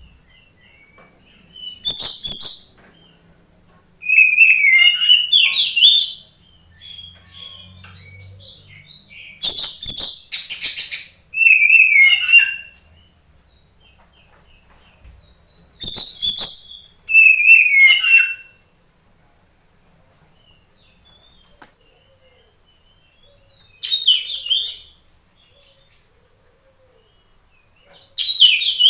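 Oriental magpie-robin (kacer) singing vigorously in loud bursts of whistled, gliding phrases mixed with sharper high notes, about seven phrases with short silent pauses between them.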